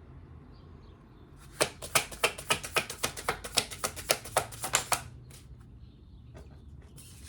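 Tarot deck being shuffled by hand: a quick run of sharp card slaps, about six a second, starting about a second and a half in and stopping about five seconds in.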